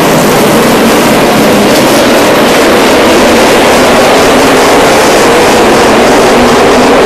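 A field of NASCAR Sprint Cup stock cars' V8 engines running together on the track: a loud, steady din.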